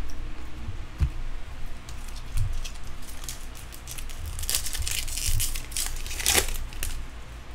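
A baseball card pack's wrapper crinkling as it is torn open by hand. There are scattered crackles, then two louder bursts of crinkling, one about halfway through and one near the end, with a few soft knocks from handling.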